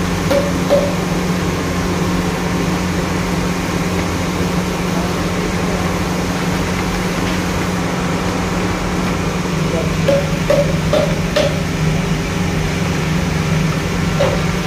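Diesel-fired bhatti burner running with a steady roar and the constant hum of its blower, under the bubbling of a large pan of hot frying oil as coated peanuts are tipped in.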